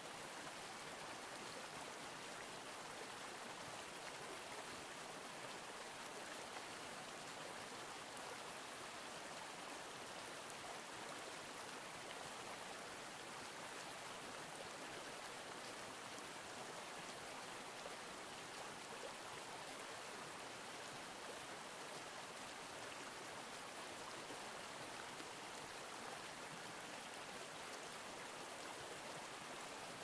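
Stream water flowing over rocks: a steady, even rushing with no bird song.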